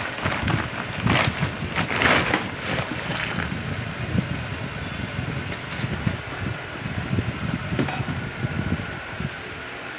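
Ceiling fan running, a steady rushing with a faint hum. For the first three seconds or so, louder irregular gusts of air buffet the microphone, then the sound settles steadier.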